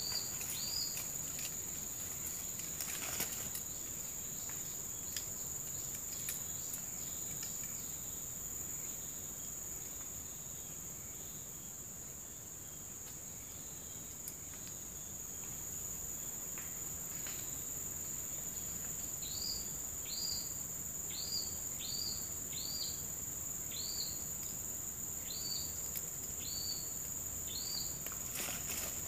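A steady, high-pitched insect drone. About two-thirds of the way in, a bird starts repeating a short call that slides downward, roughly one call every two-thirds of a second.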